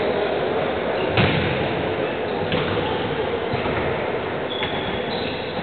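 A futsal ball being kicked and thudding on the wooden court of a large sports hall, echoing. The loudest hit comes about a second in, with fainter knocks later and brief high squeaks over the steady hall noise.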